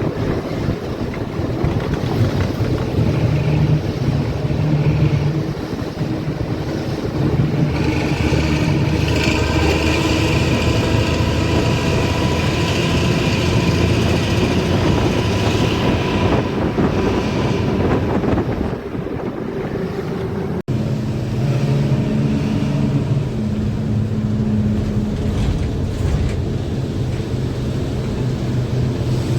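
Harapan Baru bus engine running through a racing exhaust, a continuous deep rumble with a higher whine over it for about ten seconds in the middle. The note then settles lower after a momentary break about two-thirds in.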